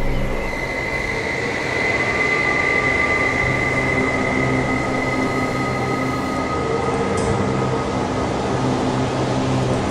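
Dark ambient drone from a horror soundtrack: a dense, steady rush of noise with a thin high whine that swells a couple of seconds in and then fades, and a lower tone that comes and goes beneath it.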